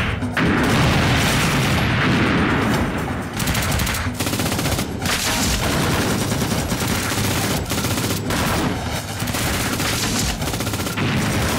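Gunfight sound effects: automatic rifle fire in rapid bursts, many shots overlapping.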